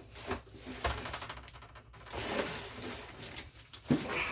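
Light knocks and clatter with a stretch of rustling, as food items and containers are handled and set back into a refrigerator.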